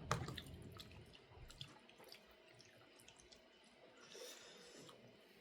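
Faint eating sounds while eating braised chicken: a sharp click at the start, then scattered soft clicks and small wet sounds, with a brief soft hiss near the end.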